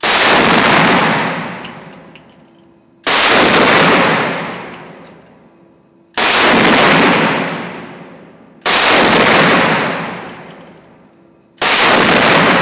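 Desert Eagle pistol in .50 AE firing five single shots about three seconds apart, each very loud and ringing out in a long echo that fades over a couple of seconds in an enclosed range.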